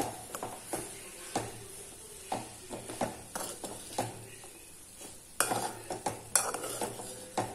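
Metal spatula stirring and tossing chopped banana flower in a frying pan, scraping and knocking against the pan at an irregular pace, over the faint sizzle of the frying. The loudest scrapes come in the second half.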